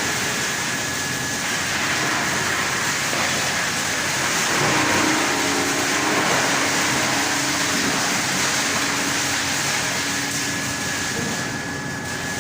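Large wood crusher (stump chipper) running, a steady dense rushing noise with a faint whining tone, dipping briefly near the end.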